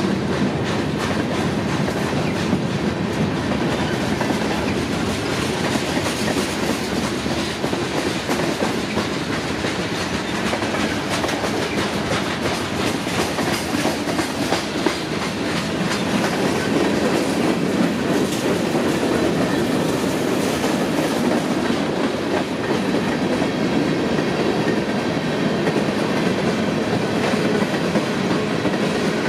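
Freight cars passing at speed close by: steel wheels running on the rails with a steady rumble and a rapid clickety-clack of wheels over the rail joints.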